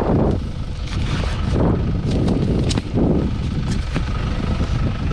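Steady low rumble of wind on the microphone, with a run of short rustles and knocks from items being handled in a pile of kerbside rubbish.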